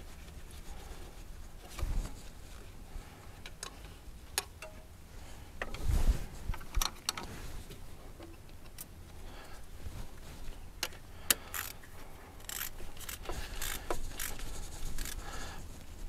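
Scattered metallic clinks and clicks of hand tools and a ratchet fitting and tightening a diesel fuel injector's hold-down bolt, with dull knocks about two and six seconds in.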